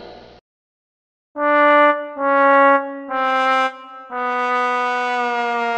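Sad-trombone comedy sting: four descending brass notes, the 'wah-wah-wah-wahhh' failure gag, with the last note held long and sagging slightly. It follows the tail of plucked-string background music, which fades out about half a second in.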